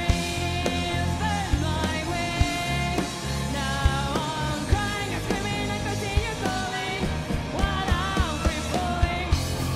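Live rock music from an all-women band: a woman singing lead over drums and electric guitar.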